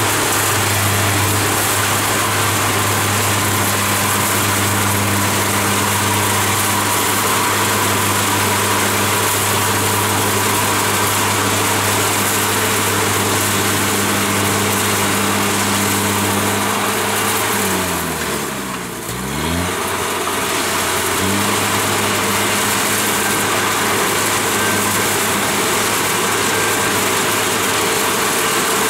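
Kubota DC-70 Plus combine harvester working, its diesel engine running steadily under the broad noise of the machine's cutting and threshing. About eighteen seconds in the engine speed drops sharply and climbs back up within about three seconds.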